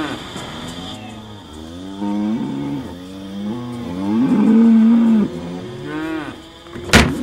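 Cows mooing, a string of drawn-out moos one after another, some overlapping, the loudest and longest about four seconds in. A sharp knock sounds near the end.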